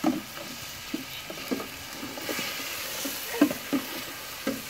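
Chicken pieces sizzling in oil in a square metal pan, stirred with a flat metal spatula. The spatula scrapes and knocks against the pan several times, the sharpest about three and a half seconds in.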